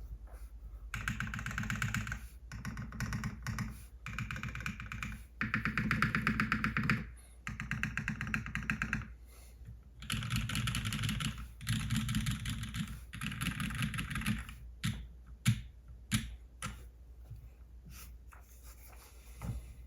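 Typing on a gasket-mounted Plum Iron160 mechanical keyboard with a copper plate, lubed and filmed Kailh-stem Cherry MX Black linear switches and GMK keycaps: several bursts of fast keystrokes, then single, spaced key presses in the last few seconds.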